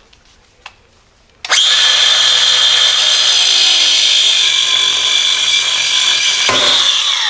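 Cordless angle grinder with a cutoff wheel starts suddenly about a second and a half in and cuts through the rusted steel center bolt of a leaf spring pack. It makes a steady high whine with a grinding hiss, changes near the end, and starts to wind down right at the end.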